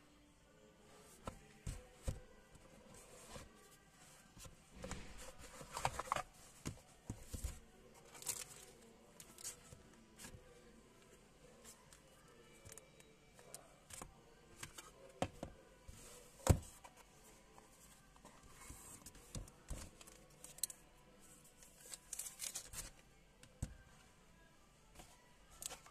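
Hands unboxing sunglasses: a cardboard box and its lid sliding and tapping, the rustle of packaging, and the soft case and plastic frames being set down on a table. Scattered short rustles and taps, with one sharp click about two-thirds of the way through.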